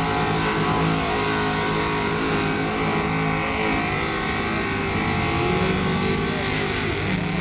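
Mud truck's engine running loud at high revs, its pitch dipping and then climbing again about halfway through.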